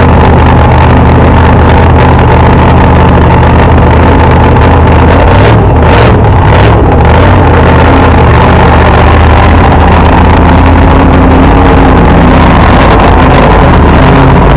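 Fuel altered drag car's nitro-burning engine idling steadily, very loud and overloading the recording.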